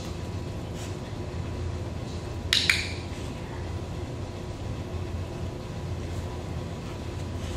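Steady low room hum, broken about two and a half seconds in by a quick, sharp double click.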